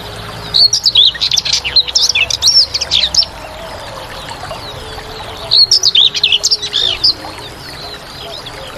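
A songbird singing two quick phrases of rapid, high, warbling chirps, the second about two seconds after the first ends, over steady background noise.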